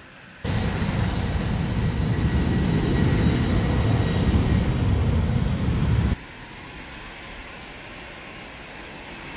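Boeing C-17A Globemaster III's four turbofan jet engines at take-off power: a loud jet roar with a faint high whine. It cuts in suddenly just after the start and cuts off suddenly about six seconds in, leaving a much fainter steady rumble.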